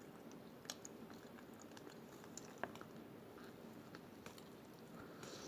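Faint chewing of a sandwich, with a few scattered sharp little mouth clicks.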